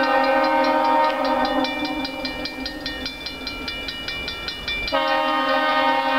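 An approaching train's air horn blowing for a grade crossing: one blast fades out about two seconds in, and after a gap of about two seconds another blast starts near the end. Under it the crossing signal's bell rings steadily.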